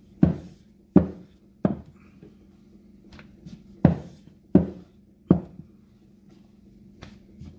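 Wooden rolling pin knocking against a stone countertop while flour tortilla dough is rolled out: six sharp knocks in two runs of three, with a pause of about two seconds between the runs.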